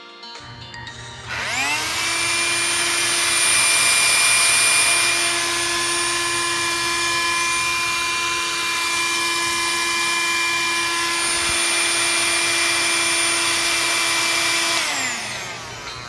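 Handheld rechargeable car vacuum cleaner switched on: its motor speeds up with a rising whine about a second in and runs steadily with a high whine over a rush of air. Near the end it is switched off and winds down with a falling whine.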